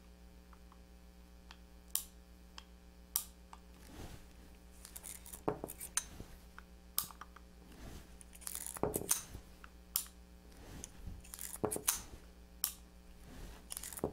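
Single-action revolver being unloaded at half-cock: a dozen or so sharp metallic clicks and clinks, spaced out, as the cylinder is turned chamber by chamber and the extractor rod pushes the dummy cartridges out.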